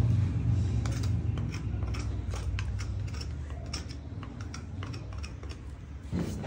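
A farrier's hand tools working on a horse's hoof: a run of irregular sharp clicks and snips over a low rumble.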